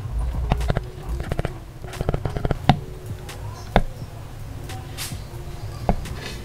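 A stylus tip tapping on a tablet's glass screen: quick, irregular clicks, a few louder than the rest, over a low steady hum.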